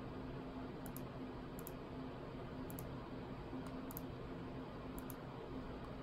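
Faint computer mouse clicks, about six of them roughly a second apart, each a quick double tick, as items are picked from a pop-up menu, over a low steady hum.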